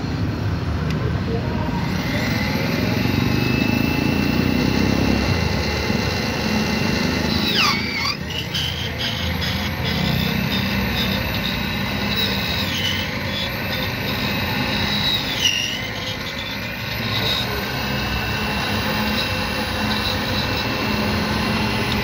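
Key-duplicating machine's motor running with a steady whine over a constant mechanical hum; the pitch dips briefly twice, about eight and fifteen seconds in.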